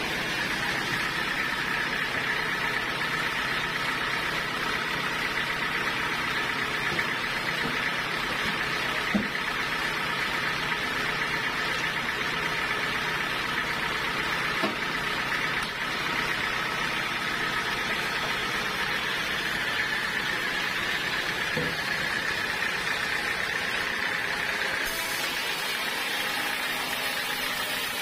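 Sawmill machinery running steadily, with a few light knocks.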